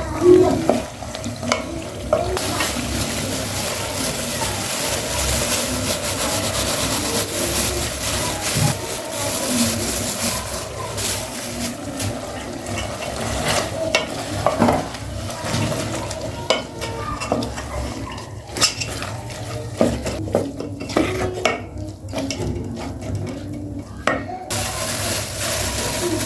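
Food frying in a pot with a steady sizzling hiss, while a utensil stirs and clinks against the pot. The hiss thins out briefly near the end, then comes back.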